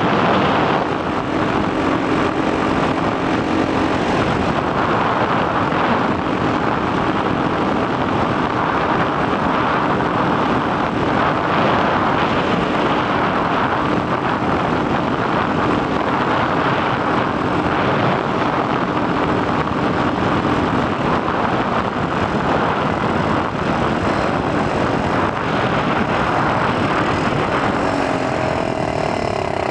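Small two-stroke engine of an X18 super pocket bike running at road speed, half buried under heavy wind noise on a helmet-mounted microphone. The engine note shifts near the end.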